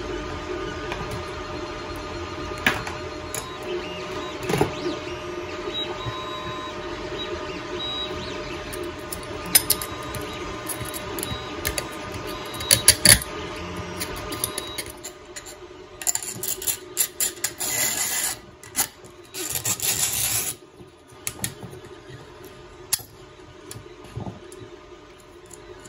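A 3D printer's stepper motors whir steadily in the background while metal capacitor plates and spacers clink and tick as they are handled and stacked onto rods. From about fifteen to twenty-one seconds in comes a run of louder, hissy scrapes and rattles.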